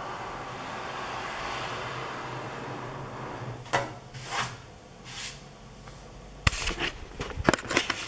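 An MSI MEG Prospect 700R PC case being handled and moved on a wooden table: a steady rubbing hiss, then three short scrapes, and a quick run of knocks and clicks near the end.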